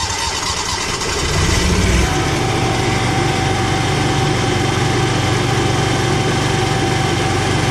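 Cummins Onan RV QG7000 gasoline generator being started: the starter cranks, the engine catches about a second and a half in and picks up speed, then settles into steady running. It is run to circulate fresh oil after an oil change.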